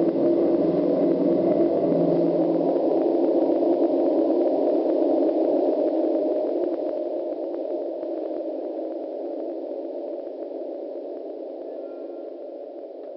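Electronic drone soundscape: a dense, steady wash of sound in the low-middle range, with a deep bass layer that drops out about two seconds in. The whole then fades out slowly over the second half.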